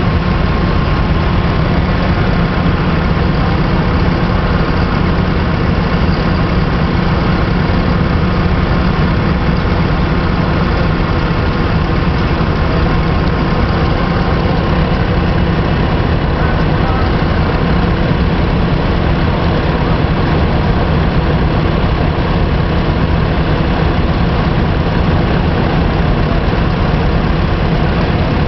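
Vintage threshing machines at work, belt-driven by a vintage tractor engine running steadily under load: a continuous mechanical drone with a thin steady whine.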